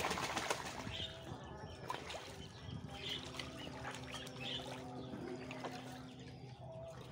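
Water splashing and trickling in a muddy puddle as a duck bathes in it, with short high bird chirps now and then and a faint steady hum from about three seconds in.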